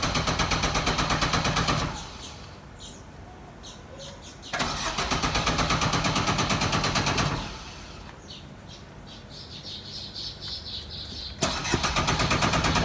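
Car engine cranking on its starter motor in three tries of about two to three seconds each, the last starting near the end, with fast, even pulsing and never catching: the car won't start.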